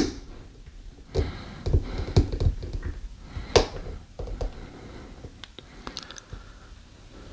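Scattered light clicks and taps from multimeter test probes being set and held on the terminals of a large electrolytic capacitor, with soft handling noise. The sharpest clicks come at the very start and about three and a half seconds in.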